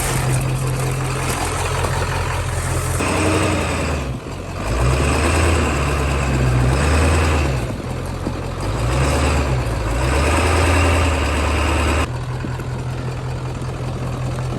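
Ford F-350 monster truck's engine revved in several surges under throttle, then dropping back to a steady idle about twelve seconds in.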